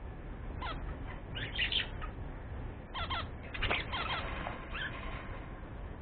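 Budgerigars chirping and warbling in several short runs of quick calls, busiest around a second and a half in and again from three to four and a half seconds, over a steady low rumble.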